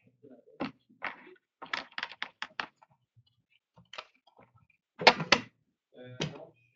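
Trading cards and card boxes handled on a tabletop: a scatter of short taps and knocks, with a quick run of them about two seconds in and the loudest pair about five seconds in.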